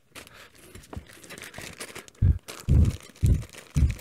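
A small clear plastic bag being handled, crinkling and rustling. About halfway through come four short, loud low thumps, roughly half a second apart.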